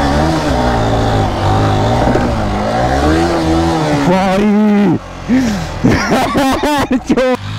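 Yamaha R15 V3's single-cylinder engine revving hard as the bike accelerates up a dirt ramp for a jump. The pitch rises and falls under throttle, climbs and cuts off abruptly about five seconds in, and is followed by several short, sharp throttle bursts.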